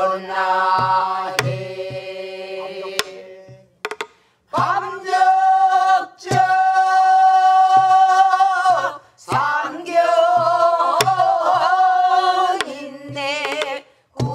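A group of voices, led by a woman, singing a Namdo folk song in the southern Korean style, with long held notes that waver and shake, pausing briefly twice. Buk barrel drums keep the rhythm underneath with dull thumps and a few sharp stick clicks.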